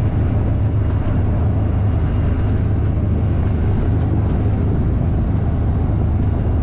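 Vehicle driving, heard from inside the cab: a steady low rumble of engine and road noise.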